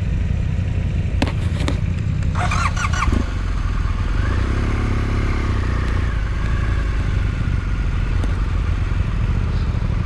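Motorcycle engine idling steadily, with a few clicks about a second in and a short high squeal just before the third second.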